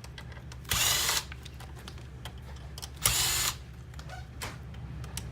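Power screwdriver backing out small Phillips screws: two short runs of about half a second each, one about a second in and one about three seconds in, with faint clicks between.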